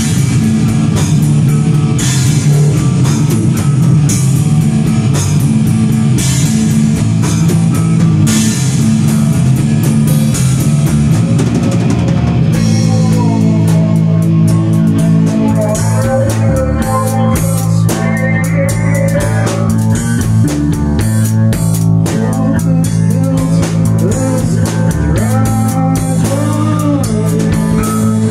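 Rock music with a drum kit and guitar. About twelve seconds in the drums thin out and a melody line with gliding, bent notes comes to the front.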